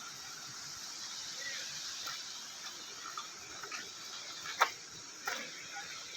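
Steady rushing hiss of flowing river water, with two sharp clicks a little over a second apart near the end.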